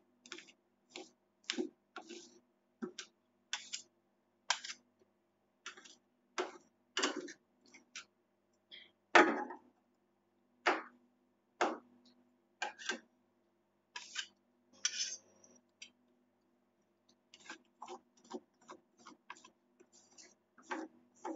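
Metal spatulas striking and scraping on the steel cold plate of a rolled-ice-cream pan, sharp strikes coming about one or two a second with a short pause about three quarters of the way through. A faint steady hum runs underneath.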